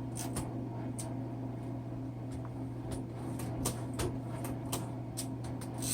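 1952 Royal Quiet DeLuxe manual typewriter's carriage being worked back and forth to free a set margin stop, giving scattered, irregular clicks from the carriage mechanism over a steady low hum.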